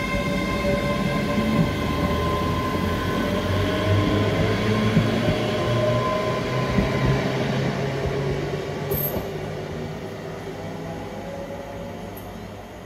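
ScotRail Class 385 electric multiple unit passing at speed: a rumble of wheels on rail with a steady multi-tone whine. The sound peaks about four to six seconds in, the whine dies out, and the rumble fades as the train draws away.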